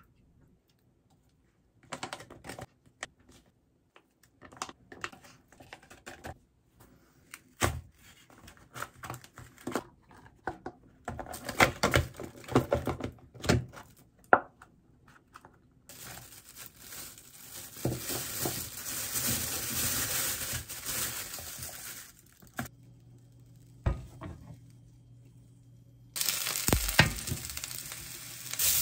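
Kitchen handling noises: a string of clicks and knocks, with plastic crinkling, as plastic trays, containers and a bag are handled. A steady hiss runs for several seconds and stops abruptly. About 26 s in, mini king oyster mushrooms start sizzling in a frying pan.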